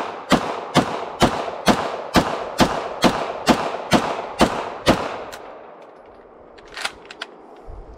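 Zenith Z5K, a semi-automatic 9mm MP5K clone, firing a steady string of single shots about two a second, roughly a dozen in all, each with an echoing tail, stopping about five seconds in. A few fainter sharp clicks follow near the end.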